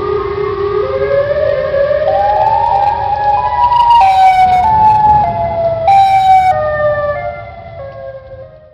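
Siren wail: several tones climbing in steps for about four seconds, then stepping back down and fading near the end, over a low rumble.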